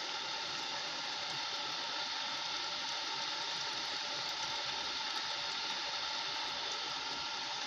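Small electric water pump running with a steady whirring hum, pumping water at what its users find low flow and low pressure.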